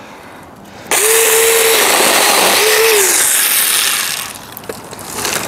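A 4-inch cordless mini chainsaw starts suddenly about a second in and cuts through wood. Its motor whine holds steady, then drops away twice as the chain bites. It eases off around four seconds in and picks up again near the end.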